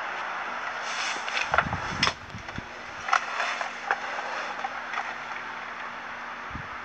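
A Hummer H1 idling, heard inside the cab as a steady hiss, with scattered clicks, scrapes and a few low knocks between about one and five seconds in.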